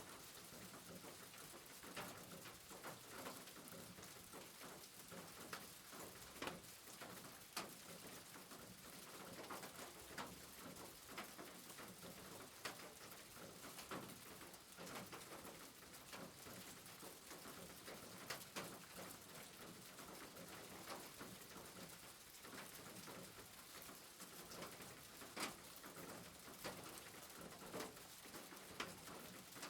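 Faint steady rain, with irregular drops ticking and tapping throughout.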